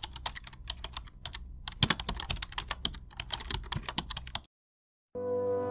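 Rapid, irregular typing clicks, a keyboard typing sound effect laid under text being typed out letter by letter, which cut off about four and a half seconds in. After a brief silence, music with sustained held chords starts near the end.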